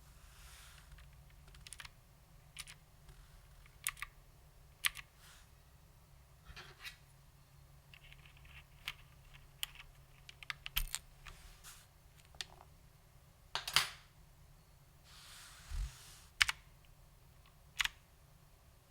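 Vintage Cherry MX Blue key switches on an HMC C386SX mechanical keyboard clicking as keys are pressed one at a time at an irregular, unhurried pace, a few strokes louder than the rest.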